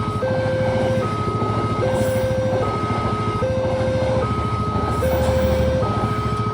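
Railway level-crossing warning alarm sounding its two-tone pattern, a higher and a lower tone alternating about every 0.8 seconds, over a steady low engine rumble.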